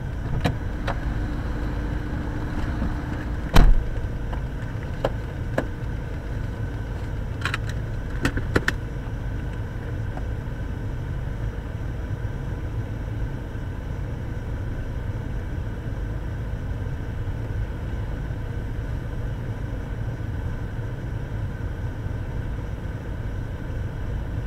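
Car engine idling steadily in stopped traffic, heard as a low rumble inside the cabin. A single thump sounds about three and a half seconds in, with a few light clicks scattered through the first nine seconds.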